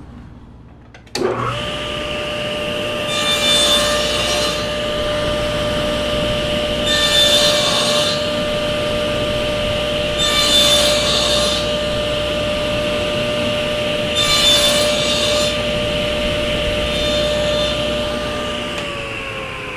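Table saw motor and blade starting about a second in and running with a steady whine, cutting wood in five passes about every three and a half seconds, the last pass lighter. Near the end the saw is switched off and its whine drops in pitch as the blade winds down.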